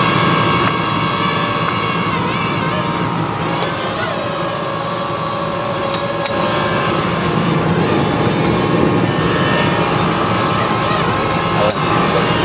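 Quadcopter drone hovering close by, its rotors giving a steady multi-toned whine that shifts in pitch a couple of times, over a low hum, with a few faint clicks.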